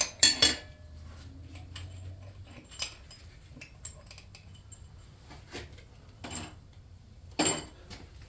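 Metal tools and parts clinking and knocking as they are handled and set down: a quick cluster of sharp clinks at the start, a few lighter ones in between, and another loud clink about seven and a half seconds in.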